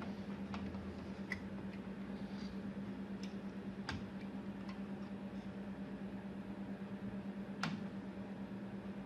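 A handful of light clicks and taps of hand tools on a circuit board during desoldering, the sharpest about two-thirds of the way in, over a faint steady hum of bench equipment.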